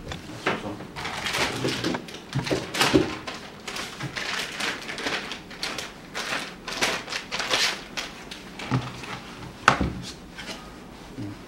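Plastic packaging bag rustling and crinkling in irregular bursts as parts are unwrapped by hand, with a few knocks of flat panels set down, the sharpest near the end.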